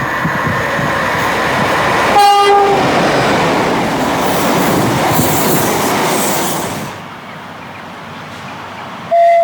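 A train passing at speed with a loud rush of wheel and air noise sounds a short horn blast about two seconds in. The rush stops abruptly and a second train horn starts near the end, holding one steady note.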